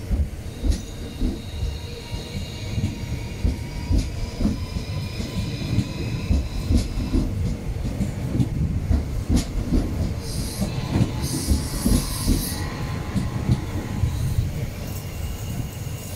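Renfe Civia electric commuter train running past along the platform: a steady low rumble with wheels clicking over rail joints and a thin high whine. About ten seconds in there are two short bursts of high hiss.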